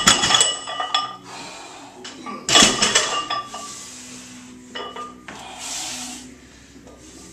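Loaded Olympic barbell clanking on the lifting platform, its metal plates and sleeves ringing, with a sharper clank about two and a half seconds in and lighter clinks after as the bar is handled between reps; a hiss of heavy breathing near the end.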